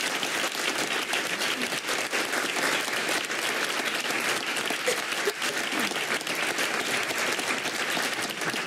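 Audience applauding steadily, fading right at the end.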